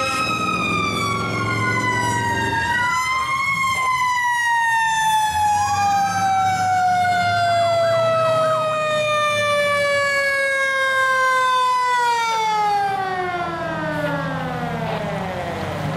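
Fire engine siren, its pitch sliding slowly and steadily down through the whole passage, with a second siren tone rising briefly across it a few seconds in. The truck's engine rumbles underneath as it goes by.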